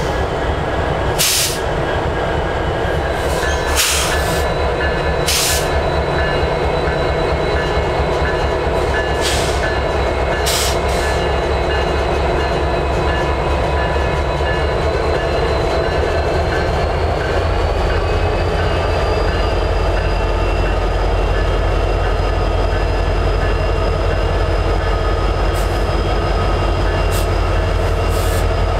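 Diesel freight locomotive running close by: a steady heavy rumble with several held tones, broken by a few sharp clicks early on. About halfway through the tones rise a little and the low rumble grows louder.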